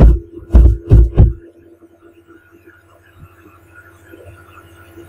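Four heavy, low thumps in the first second and a half, computer keystrokes knocking through the desk into the microphone. After them comes a steady low electrical hum.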